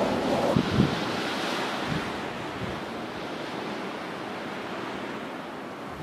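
Blizzard wind blowing in a steady rush that swells about a second and a half in, then eases. Near the start, two or three low thumps of wind buffet the microphone.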